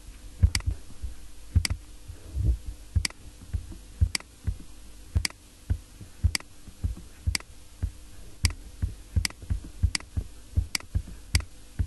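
Computer mouse clicking about once a second at an uneven pace, each click a short sharp tick with a soft low thump, over a faint steady hum.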